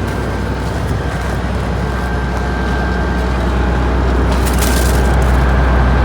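A heavy vehicle engine running steadily at a low pitch, slowly growing louder.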